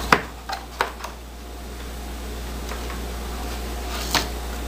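Sharp plastic clicks and knocks from a Harbor Freight auto-darkening welding helmet being handled and turned over: four in quick succession in the first second, the first the loudest, and one more near the end.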